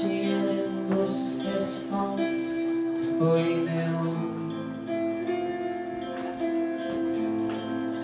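Live band playing the song's instrumental intro: guitar chords and held notes with a few cymbal washes in the first two seconds.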